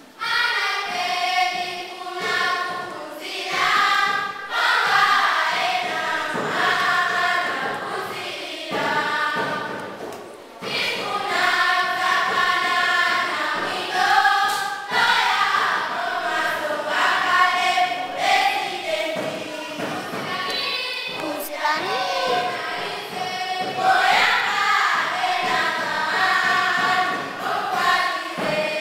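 Group of children singing a traditional Malawian welcome song together as a choir, in phrases, with a short break about ten seconds in.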